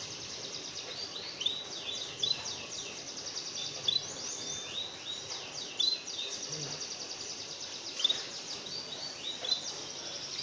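Small songbirds chirping and trilling: rapid high trills overlapping with short upward-sweeping chirps, with a few sharp ticks scattered through.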